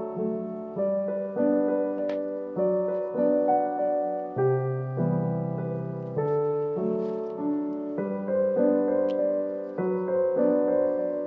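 Background piano music: a slow melody of held notes, about two a second.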